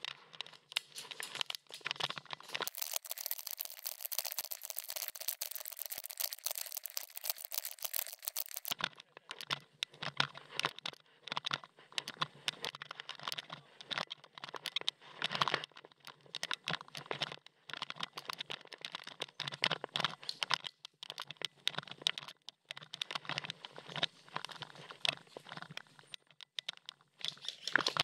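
Irregular crunching and rustling from a player moving on foot: footsteps on dry dirt and grass, and gear rubbing near a head-worn camera. From about 3 to 9 seconds in the sound turns thin, with its low end cut away.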